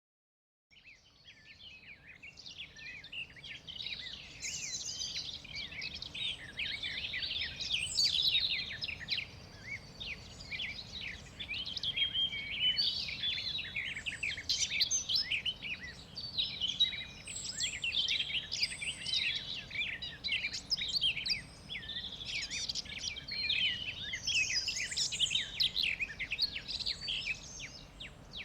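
Many small songbirds chirping and trilling at once, a dense overlapping chorus of quick high calls over a faint steady background hiss. It fades in from silence over the first few seconds.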